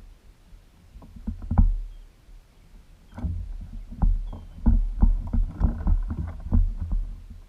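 Irregular knocks and heavy low thumps against the hull of a small fishing boat, sparse at first and coming thick and fast from about three seconds in.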